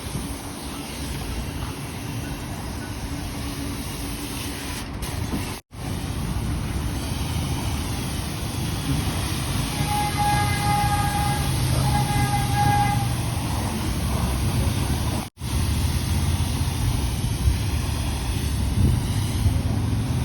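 Steady vehicle and road rumble, as from a car driving in traffic. A horn sounds in two short blasts near the middle. The sound cuts out sharply twice, a split second each time.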